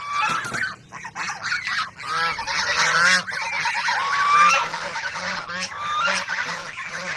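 A flock of white domestic geese honking and calling over one another, with many overlapping calls.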